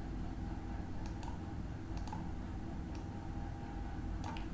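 Scattered clicks at a computer, several in quick pairs roughly a second apart, over a steady low hum.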